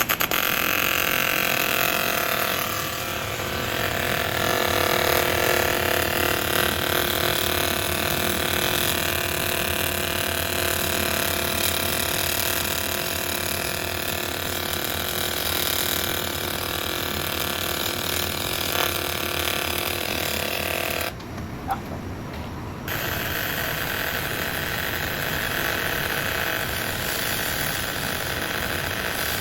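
TIG welding arc burning, a steady buzzing hiss that cuts out for about a second and a half some 21 seconds in, then strikes up again.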